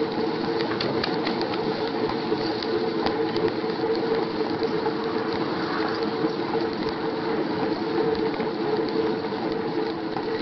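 Bicycle being ridden: a steady mechanical hum with rattling and many small sharp clicks from the bike and the camera riding on it.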